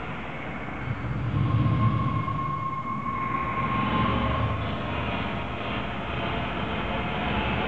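Low, steady rumbling noise, like a passing train, with a held high tone from about one to four seconds in.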